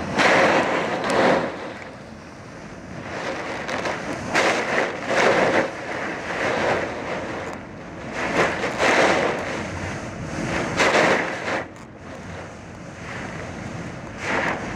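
Hurricane Sandy's winds gusting hard against the microphone in repeated loud surges, over heavy storm surf crashing against a seawall.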